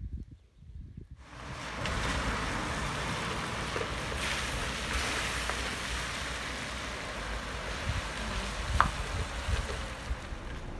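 Steady hiss of a minibus and its tyres on a wet road, setting in about a second in after a few low thumps of wind on the microphone. A brief squeak about two seconds before the end.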